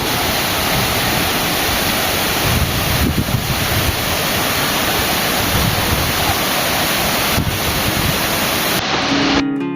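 Steady, loud rush of a waterfall filmed up close, with wind buffeting the microphone. About nine and a half seconds in, the water sound cuts off and strummed acoustic guitar music begins.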